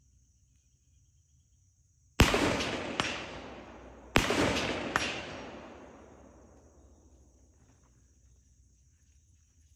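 Two rifle shots from a 5.56 mm Recce rifle, about two seconds apart. Each is followed less than a second later by a fainter crack, then a long rolling echo that dies away over several seconds.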